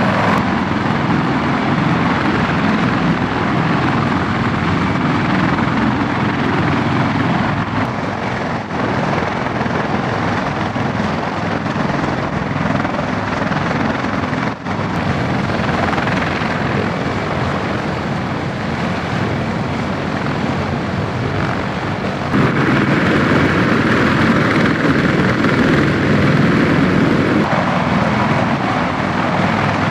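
Steady helicopter rotor and engine noise, shifting in level at a few points and loudest in the last part.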